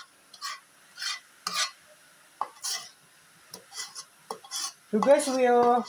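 A metal ladle scraping and clinking against a frying pan in a string of short, separate strokes as creamy carbonara sauce is scraped out onto the pasta. A brief voice comes in near the end.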